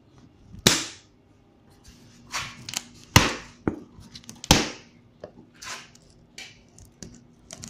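Box cutter slitting the packing tape on a cardboard box: short scratchy strokes of the blade through tape and cardboard, with three sharp knocks from handling the box.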